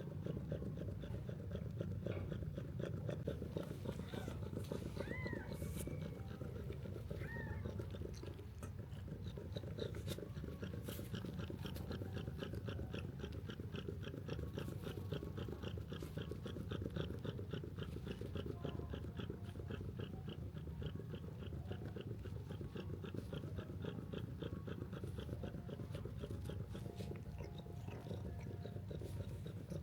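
A cat purring steadily under a fast, regular run of small clicks, which may be the sound of it eating. Two brief, faint high chirps come about five and seven seconds in.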